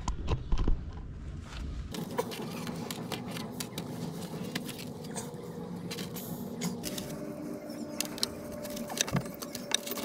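Light clicks, taps and scrapes of a wooden perch bar being handled and fitted against a brick wall. In the first two seconds there are a few dull knocks.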